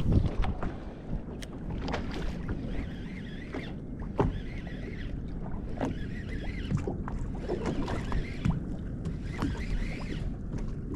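Water slapping and lapping against a small fishing boat's hull over a steady low rumble, with scattered short knocks and splashes.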